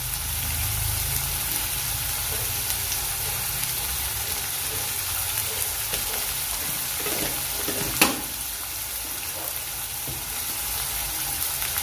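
Small whole fish and prawns frying in hot oil in a metal kadai, a steady sizzle, with one sharp click about two-thirds of the way through.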